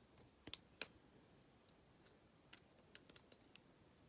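A few faint, sharp clicks of a lock pick and tension wrench working in the keyway of a Master Lock 410 lockout padlock: two about half a second apart near the start, then a quick cluster of several more a little past halfway.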